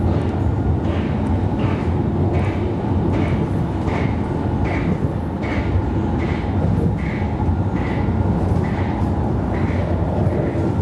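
Alstom Citadis tram running along the line, heard from inside the driver's cab: a steady low rumble of wheels on rail and traction drive, with a short tick repeating regularly about every two-thirds of a second.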